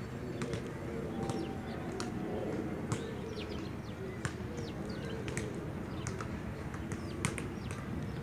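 Small birds chirping repeatedly in blossoming trees, many short, quick downward-sliding notes, over a steady low background noise.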